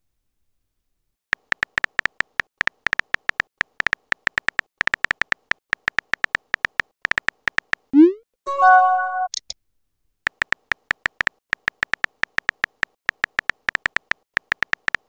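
Texting-app keyboard sound effects: rapid, irregular high ticks, one for each letter as a message is typed. About 8 seconds in, the message sends with a short rising swoop and a brief chime of a few notes, and then the ticking starts again for the next message.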